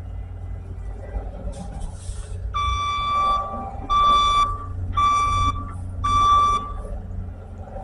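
Skid steer backing up: its reverse alarm beeps four times, about a second apart, over the steady low rumble of its diesel engine.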